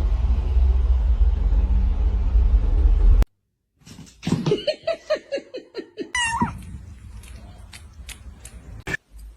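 A loud low rumbling noise for about three seconds, cut off abruptly. After a short gap, a cat calls several times in short pitched cries that fall in pitch, followed by one higher cry and a few clicks.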